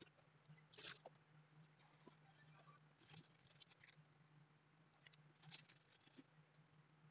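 Near silence: a pot of pork sinigang simmering faintly over a low steady hum, with three soft brief hissy pops and a few tiny ticks.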